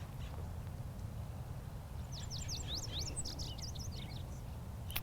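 A small bird singing a quick run of high chirps and sweeping whistles about two seconds in, over a steady low outdoor rumble.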